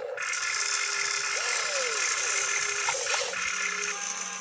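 Radio-controlled excavator running, its motors and pump whirring with a high hiss as the boom lifts and the bucket curls, with a short squeal about one and a half seconds in.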